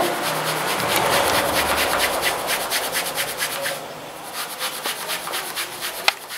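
Rubbing and scratching friction noise: a continuous rub for the first few seconds, then quick regular scratching strokes about five a second, with a single sharp click near the end.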